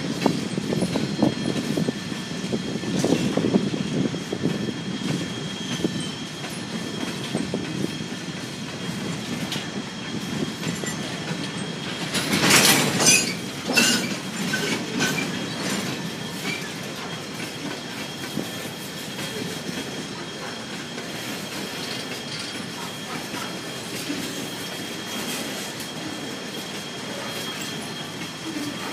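Freight cars rolling past at close range: a steady rumble with wheels clacking over the rail joints, louder in the first few seconds. About twelve seconds in comes a brief burst of high-pitched wheel squeal, the loudest sound.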